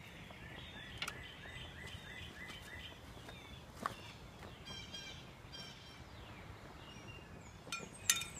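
Songbirds singing: quick runs of short, repeated down-slurred chirps, over a low steady outdoor hum. Near the end, a sharp metallic click as a metal canning-jar ring is set into a cast iron skillet.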